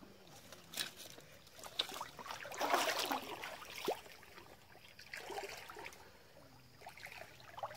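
Shallow creek water trickling and sloshing around a person wading knee-deep, with a few light clicks and a louder splash about three seconds in.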